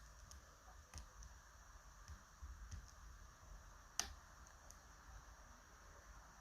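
Faint, sparse metallic clicks of a lock pick working the pins inside a TESA T-12 lock cylinder, with one sharper click about four seconds in.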